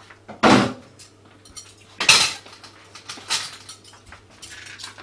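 Kitchen clatter of dishes and utensils being handled: two loud knocks about half a second and two seconds in, with lighter clinks between, over a low steady hum.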